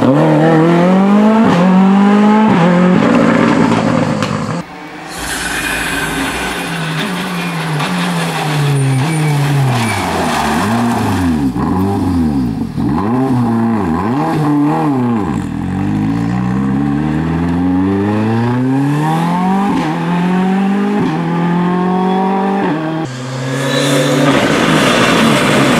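Ford Fiesta R5 rally car's turbocharged four-cylinder engine revving hard through gear changes and lifts, its pitch climbing and dropping again and again as the car works through hairpins and passes close by, with some tyre squeal. The sound jumps abruptly twice, where one pass gives way to another.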